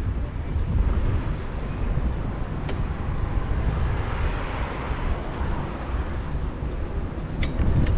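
Wind rumbling on the microphone of a camera carried on a moving bicycle, over the hiss of city traffic that swells about halfway through, with two faint clicks.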